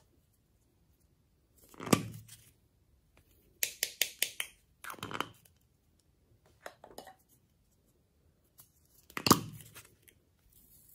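Small plastic cups being handled over a bowl of slime as glitter and beads are shaken out of them: separate knocks, taps and rattles, with a quick run of ticks about four seconds in and the loudest knock about nine seconds in.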